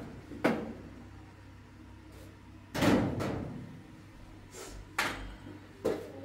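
Four sharp knocks, the loudest and longest about three seconds in, over a low steady hum.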